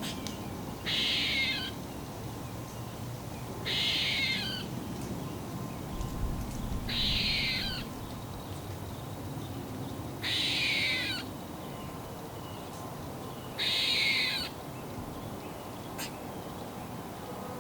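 Eastern gray squirrel squeaking: five calls about three seconds apart, each just under a second long and made of rapid falling notes.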